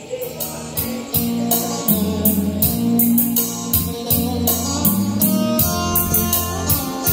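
Recorded music playing through a Dynacord CMS1000 mixer and its PA speakers as a playback test: a track with a steady beat and a heavy bass line, starting abruptly.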